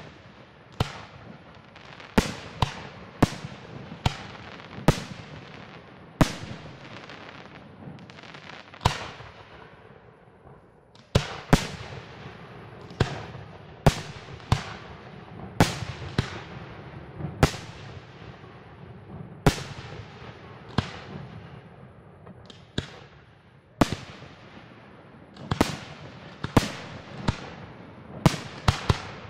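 Aerial firework shells bursting one after another, sharp bangs about one or two a second, each trailing off in an echo, with brief lulls about a third of the way in and again later.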